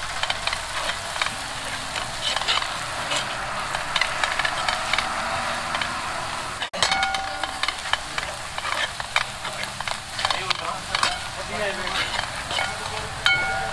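Food sizzling as it fries in a pan, stirred with a metal utensil that clicks and scrapes against the pan, with a brief break about halfway through.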